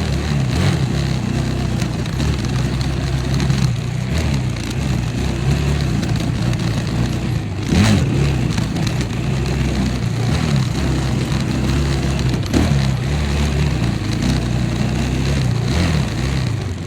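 A vehicle engine running, its pitch wandering up and down with the throttle, with a short sharp noise about eight seconds in.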